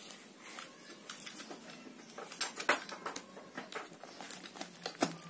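Handling noise from a grey PVC pipe tube being opened at its taped end: light scraping and rustling with a few sharp clicks, the loudest about two and a half seconds in and again near the end.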